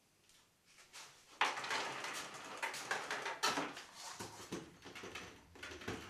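Power cord being pulled out of a canister vacuum cleaner's retractable cord reel, the cord and plug scraping and rattling across a concrete floor. It starts about a second and a half in and goes on in uneven pulls.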